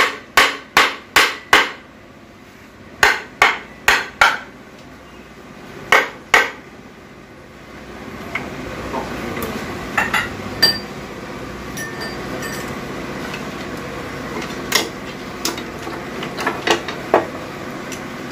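Hammer tapping on a cast-aluminium automatic transmission case to knock the split case loose once its bolts are out. The taps come in quick runs about 0.4 s apart: five, then four, then two. After that come scattered lighter metallic clinks and knocks as the housing is worked free and lifted off.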